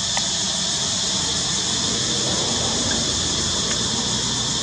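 Steady high-pitched chorus of forest insects, over a low rumble.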